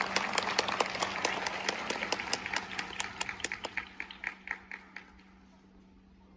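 Audience applause, with a few nearby hand claps standing out sharply, dying away about five seconds in.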